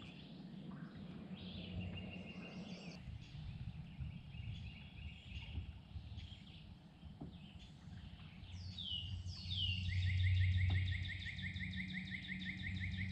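Birds singing and calling over a low steady rumble, with a fast trill of rapidly repeated notes starting about two-thirds of the way through.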